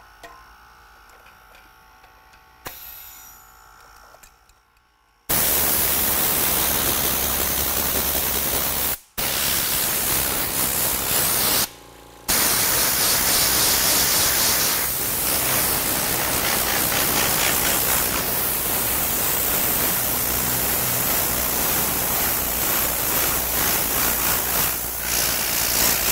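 Compressed air hissing steadily out of a blow gun on the air hose of a Werther C120/24 compressor, starting suddenly about five seconds in after a faint hum, and cut off briefly twice as the trigger is let go. The blast drains the tank to about 50 psi.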